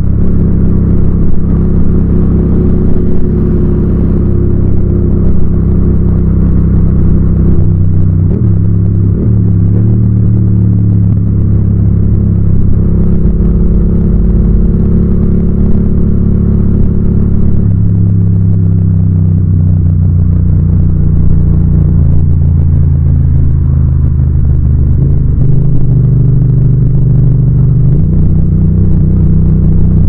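Yamaha MT-07's parallel-twin engine and exhaust running loud under way, a steady low note whose pitch shifts a few times as the throttle and gears change.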